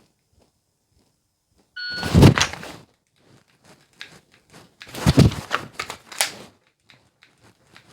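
A shot timer's short high start beep about two seconds in, then the clatter and clicks of a Glock 45 pistol drawn from its holster and dry-fired, with a louder clatter around five seconds from a magazine reload.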